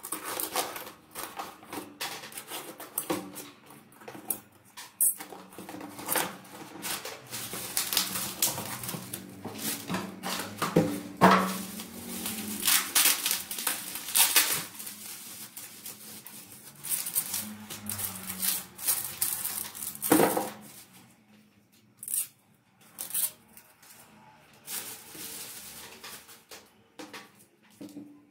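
Cardboard box and plastic bubble-wrap packaging being opened and unwrapped by hand: a dense run of crinkling, rustling and scraping that thins to a few scattered clicks and taps in the last several seconds as a plastic CD case is handled.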